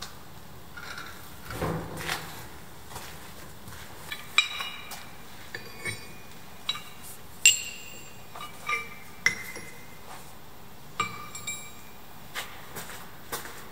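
Hand-forged steel tools set down one at a time on an anvil, each landing with a sharp metallic clink and a short ring; about a dozen clinks at irregular intervals.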